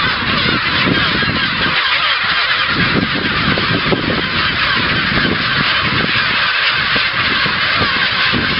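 Kelp gull colony calling: a loud, continuous din of many gulls' overlapping cries.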